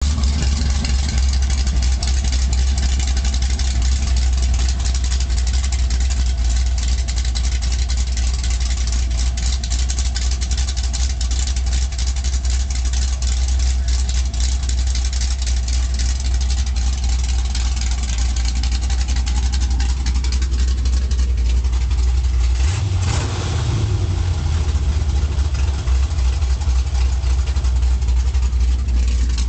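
Small-block V8 with a rough-idle cam, idling with a rough, uneven beat while its idle circuit is being tuned. The engine note briefly changes about three-quarters of the way through.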